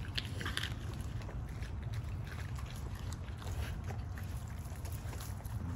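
Steady low wind rumble on the microphone, with a few faint short wet clicks of a dog chewing and licking raw chicken organs on concrete.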